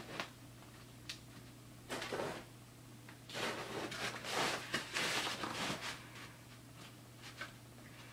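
Craft foam and a metal straightedge being handled and shifted on a cutting mat: a few spells of brushing and scraping, the longest in the middle, with a couple of light clicks, over a steady low room hum.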